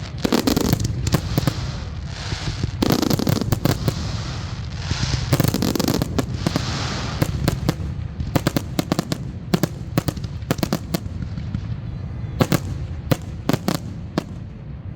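Aerial fireworks grand finale: rapid volleys of shell bursts with dense crackling through the first half, then thinning to separate sharp bangs toward the end.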